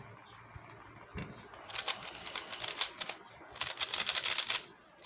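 Plastic speed cube being turned quickly, with rapid clicking and clacking of its layers. There are two spells of turning: one from about one and a half seconds in and a shorter one near the end, with a short pause between.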